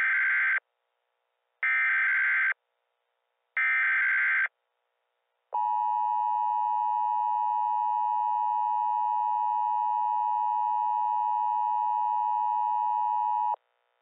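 Emergency Alert System audio: three short bursts of warbling SAME data-header tones about a second each, then the steady two-tone EAS attention signal held for about eight seconds and cut off abruptly, heralding a tornado warning.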